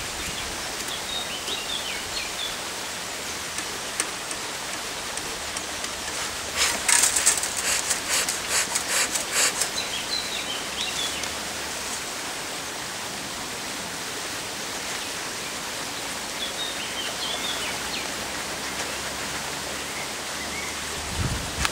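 Steady outdoor hiss with small birds chirping briefly a few times. About seven seconds in comes a loud burst of rapid rustling and crackling lasting roughly three seconds.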